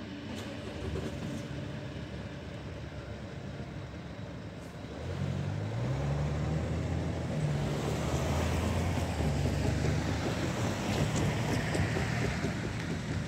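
Low rumble of a double-deck electric intercity train running away into the distance. From about five seconds in a louder vehicle rumble takes over, with engine tones that step up and down.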